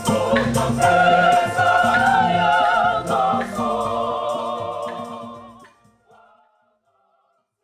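Choir singing over bass and percussion, fading out about three quarters of the way through to near silence.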